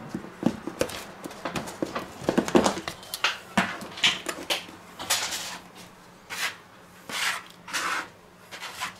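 A plastic food-storage tub's snap-on lid pulled off with clicks and rustles, then a plastic dough scraper sweeping semolina across a wooden cutting board in short scraping strokes, about one a second in the second half.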